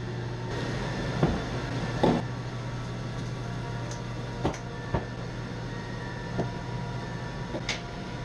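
Kitchen work sounds: a steady hum from a kitchen appliance, with a handful of sharp knocks and clinks of kitchenware spread through it.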